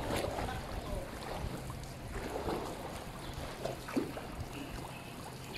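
Swimming pool water lapping and sloshing around swimmers, a low steady wash of water noise.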